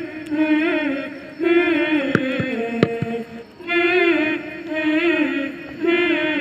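Students singing a Hindi welcome song together, in sung phrases with wavering held notes and short breaks between them. A few sharp taps come about two to three seconds in.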